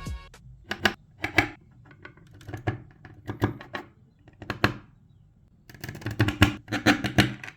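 Lego Technic plastic parts being handled and snapped together: irregular sharp clicks and rattles in short clusters, busiest near the end.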